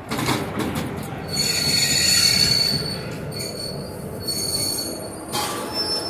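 Steel wheels of an Indian Railways WAP-4 electric locomotive squealing against the rails as it rolls slowly in, in two high-pitched spells, the first and loudest about a second and a half in, the second shorter about four seconds in. A sharp knock sounds at the start and another near the end.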